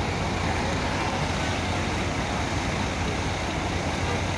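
Steady road-traffic noise with a low engine rumble; no horn sounds.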